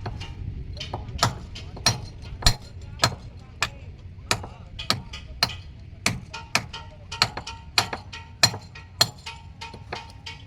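Sharp knocks repeating irregularly, about one to two a second, some with a short metallic ring, over a steady low rumble.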